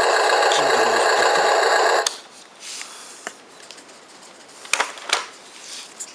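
Wheel loader's diesel engine running loud and steady, then stopping abruptly about two seconds in, followed by a few faint clicks and knocks.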